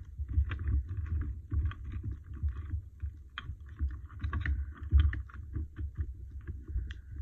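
Rubber stamps clicking and clattering against each other and the sides of a metal tin as a hand rummages through them, with many short knocks and low bumps.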